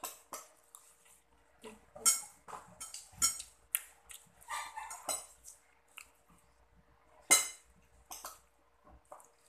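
Close-up eating sounds: chewing and mouth smacking, mixed with a few sharp clinks of a metal spoon on a ceramic plate. The loudest clink comes about seven seconds in.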